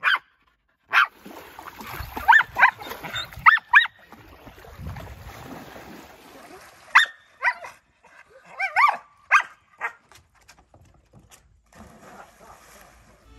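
Nova Scotia Duck Tolling Retriever screaming: clusters of short, high-pitched yelps that rise and fall in pitch, the breed's excited 'toller scream'.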